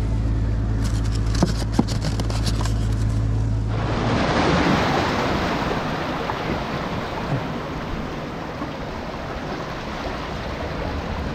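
Background music with a few sharp clicks and rustles for the first few seconds, then an abrupt change to sea surf washing over rocks, with wind rumbling on the microphone.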